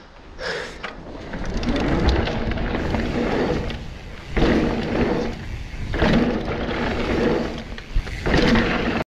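Wind rushing over a bike-mounted camera's microphone and mountain bike tyres rolling over a wooden ramp and dirt trail, a rough rumbling noise that swells in several surges with speed over the jumps, cutting off suddenly near the end.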